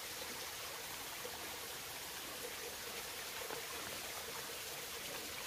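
Small stream trickling and splashing steadily over rocks.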